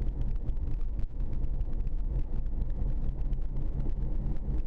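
A car engine running steadily at low road speed, about 20 miles an hour, with a low rumble of road and wind noise.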